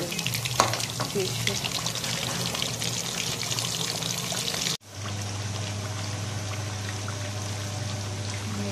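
Fish pieces shallow-frying in hot oil in a pan, sizzling and crackling steadily, with a single sharp knock about half a second in. The sound cuts out for an instant just before the five-second mark, then the sizzling carries on over a steady low hum.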